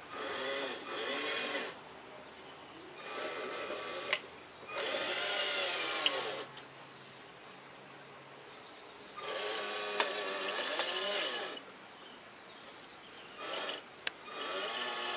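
Radio-controlled model truck's electric drive motor and gearbox whining in five short spurts, the pitch rising and falling each time as the truck speeds up and slows down.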